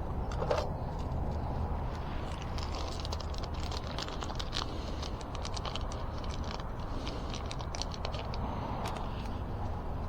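Rapid light clicks and ticks of small parts and tools being handled during brake work, over a steady low background hum.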